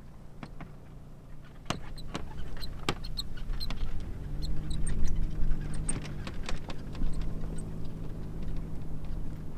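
Toyota RAV4 SUV's engine running as it drives off over rough ground: a low hum that grows stronger about four seconds in, with many scattered sharp clicks.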